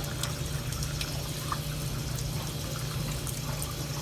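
Steady running water, like a tap left running, with a few faint clicks.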